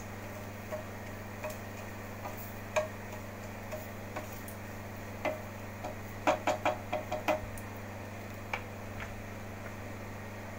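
Whole spices tempering in hot oil in a nonstick frying pan, giving sparse sharp crackles and clicks. About six seconds in comes a quick run of about six knocks as a wooden spatula stirs them against the pan. A steady low hum runs underneath.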